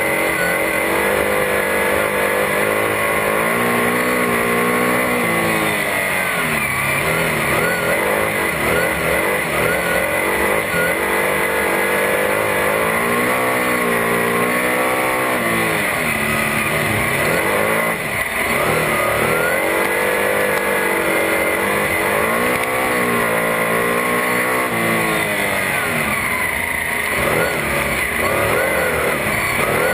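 Superstock speedway car's V8 engine heard from inside the cockpit, revving up and easing off again every few seconds as it laps the dirt oval, with a steady high whine underneath.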